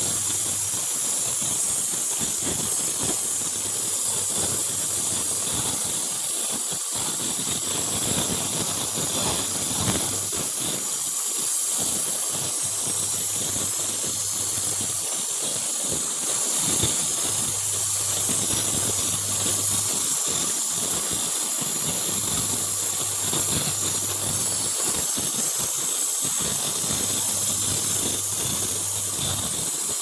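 Gas brazing torch flame hissing steadily while a tube joint on a refrigerator evaporator is brazed with a filler rod.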